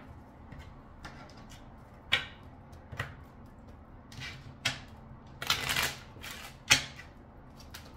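A deck of oracle cards being shuffled by hand: a handful of short riffling swishes and slaps at uneven intervals, the sharpest about two-thirds of the way through.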